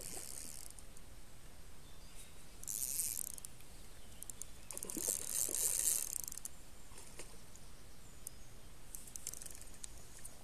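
Shimano Stella spinning reel cranked in several short bursts, a hiss of gears and braided line running through the guides, with a splash on the water about five to six seconds in where the loudest burst falls.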